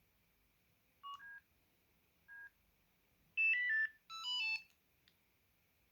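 Samsung SGH-2200 and SGH-2400 mobile phones switching off. A couple of short single beeps come first, then a quick stepped electronic shut-down melody in two short runs of notes.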